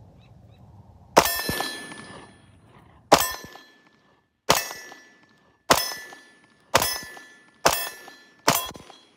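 Seven shots from a Walther PPS M2 9mm pistol, the first two about two seconds apart and the rest roughly one a second. Each shot is followed by a short metallic ring from the steel target plate being hit.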